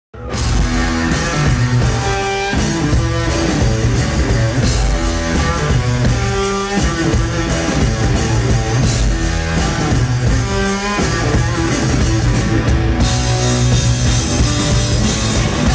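Live rock music: an electric guitar riff over a drum kit, an instrumental opening with no singing yet. It starts abruptly right at the start and stays loud.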